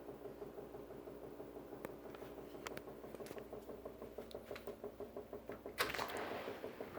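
A machine running with a fast, even pulsing beat and sharp intermittent knocks: the banging noise in question. The loudest bang comes near the end, followed by a brief rush of noise.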